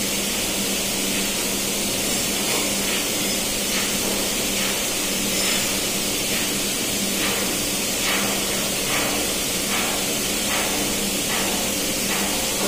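Steady engine-room machinery and ventilation noise with a constant low hum. From about two seconds in, faint hand-tool strokes recur roughly once a second as a sea water valve is worked on.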